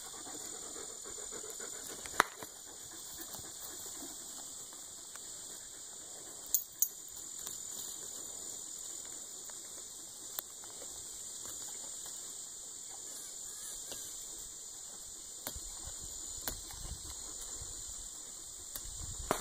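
Young goat browsing in brush: faint rustling of leaves and stems with a few sharp twig snaps, the loudest about two seconds in and a pair near seven seconds. A steady high insect drone runs underneath.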